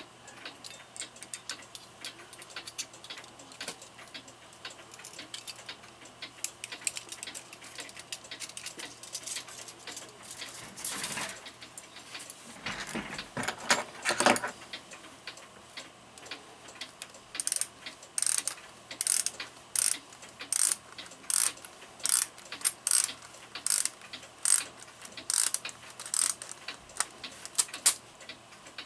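Ratchet and click of a clock mainspring being worked by hand for re-lubrication. Scattered small clicks and handling clatter come first, then from a little past halfway a steady ratcheting click about once every second.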